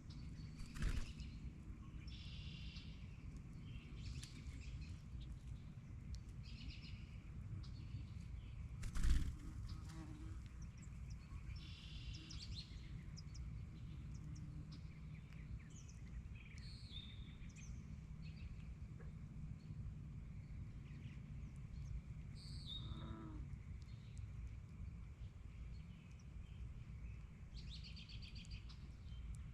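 Birds singing in short, repeated high trills every few seconds over a steady low rumble, with a sharp knock about nine seconds in and a lighter one about a second in.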